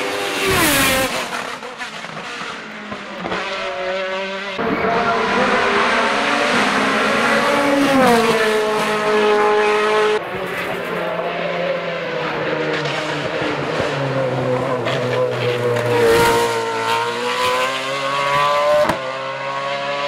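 Sports-prototype hill-climb race car engines at high revs, the pitch climbing and dropping again and again through gear changes as the cars accelerate up the hill, in several back-to-back passes with abrupt changes between them.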